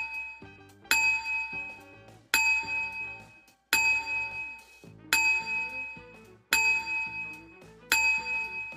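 A bright bell-like chime struck six times, about every second and a half, each strike ringing out and fading, over a soft background tune.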